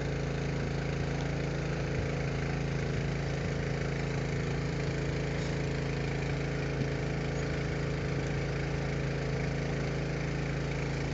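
Small boat's motor running steadily at one constant speed, a level hum with no revving.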